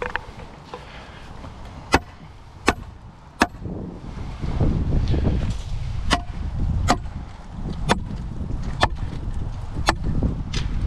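A series of sharp knocks, some with a brief metallic ring, spaced about a second apart, over a low rumble that grows louder about four seconds in.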